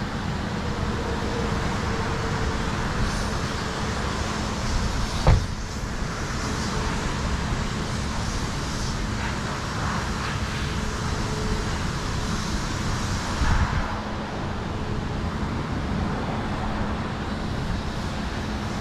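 Steady background rumble with a low hum, broken by a sharp knock about five seconds in and a brief clatter about thirteen seconds in.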